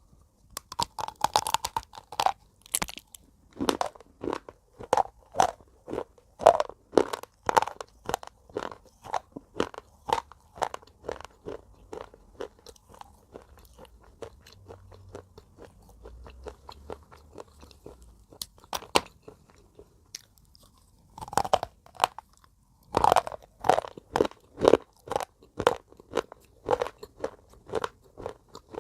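Broken slate pencil pieces being bitten and chewed close to the microphone: sharp, crisp crunches a few per second. They thin out in the middle and pick up again after fresh bites in the last third.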